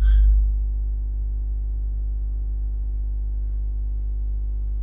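Steady low electrical hum, a ladder of even overtones over a deep drone, with a brief faint noise right at the start.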